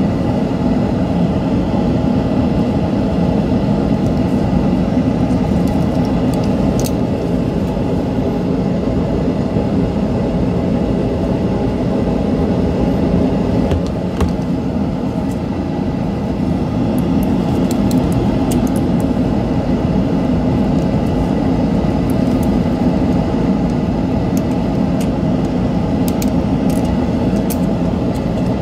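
Steady rumbling background hum, with a few faint small clicks from a screwdriver and plastic mouse parts being handled.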